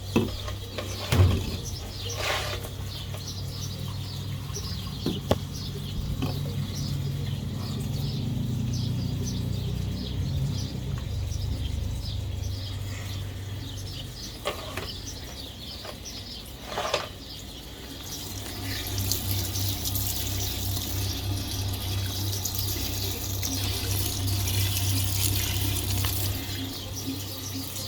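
Fisher & Paykel MW511 top-loading washing machine in its spray-rinse stage: water spraying and splashing into the drum over a steady motor hum, with a few short knocks. About 18 s in the hum grows louder and pulses until near the end.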